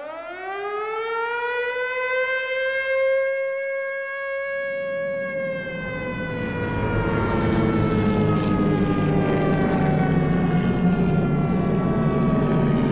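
Air-raid siren winding up, rising quickly in pitch to a steady tone, then slowly winding down and falling in pitch from about halfway through. A rumbling noise grows beneath it.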